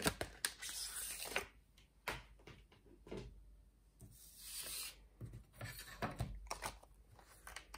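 Handling noise at a craft table: rustling of a plastic die storage sheet and paper, with light taps and clicks as acrylic cutting plates for a die-cutting machine are picked up and set down on a craft mat.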